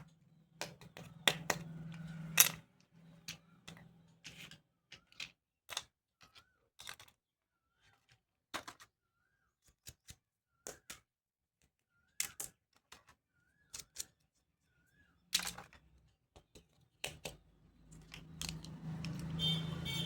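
Irregular clicks and taps of plastic toy doctor-kit pieces being handled and set down, a few sharp ones louder than the rest. A low hum sits under them at the start and again near the end.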